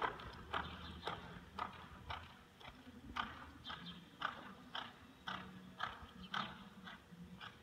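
A horse's hoofbeats on soft arena dirt as it canters in an uneven repeating rhythm, fading after the first couple of seconds as the horse moves farther off.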